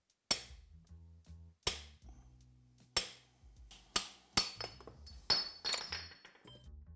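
A hammer tapping a steel bar held against a corrosion-stuck cover on a Nissan Leaf gearbox case: about eight sharp, irregular metal-on-metal taps, the later ones followed by a ringing clink, as the cover is knocked loose. Background music plays underneath.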